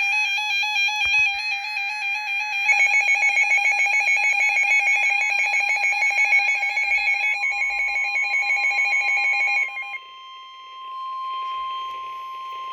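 Electronic emergency-alert tones: a buzzy, wavering alarm tone, joined about three seconds in by a rapid pulsing. Near ten seconds in it switches to a single steady tone of about 1 kHz, the weather-radio warning alarm tone that comes before the bulletin.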